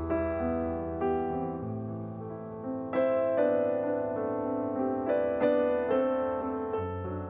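Background piano music: a slow melody of sustained notes and chords.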